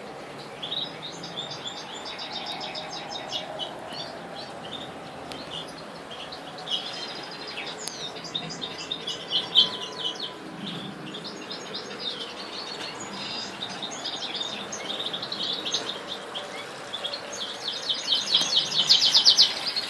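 Common nightingales chirping in repeated bouts of rapid, high-pitched notes, loudest near the end.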